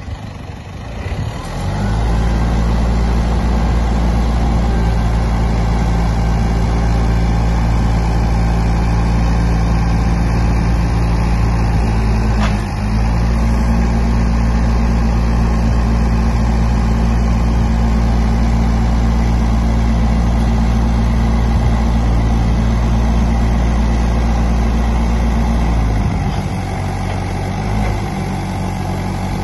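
Diesel engine of a Yale GDP25TF forklift running steadily at raised revs while the mast is lifted, coming up over the first couple of seconds, with a brief dip about halfway. Near the end the engine note drops to a lower, quieter run.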